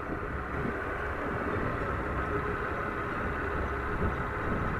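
Motorcycle engine running at a steady, easy pace with wind noise over a helmet-mounted camera's microphone.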